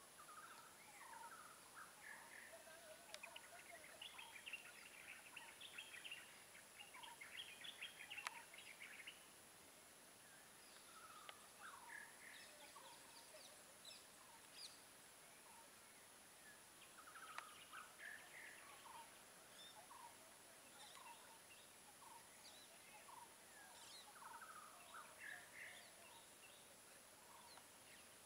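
Faint, scattered wild bird chirps and calls over a quiet background, busiest with quick trilling chirps a few seconds in.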